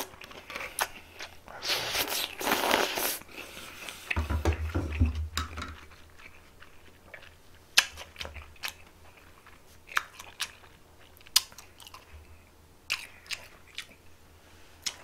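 A man slurping makguksu (cold buckwheat noodles) in noisy pulls during the first few seconds, then chewing, with scattered sharp mouth clicks and smacks.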